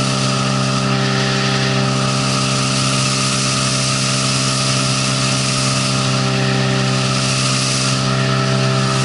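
A 9.9 hp outboard motor drones steadily at an even, unchanging pitch, driving a heavily loaded PVC inflatable boat on the plane, with a constant hiss of rushing water and air over it.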